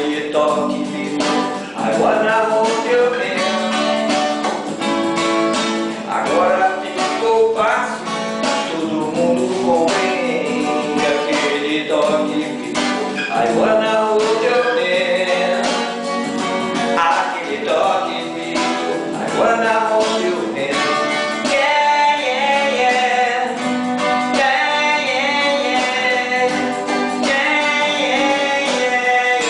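A man singing while strumming a twelve-string acoustic guitar.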